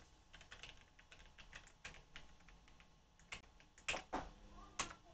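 Typing on a computer keyboard: quick runs of faint key clicks, with a few louder single keystrokes in the last second and a half.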